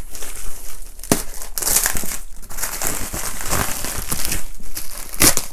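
Clear plastic wrap around a cardboard box being cut open and pulled about, a loud irregular crackling and crinkling, with a sharp click about a second in.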